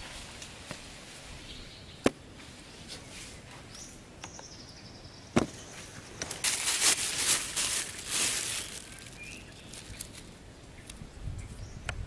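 Outdoor ambience with two sharp knocks about three seconds apart as the wooden sticks of a handmade basket trap are handled, a rustling hiss for about two seconds midway, and a faint bird chirp.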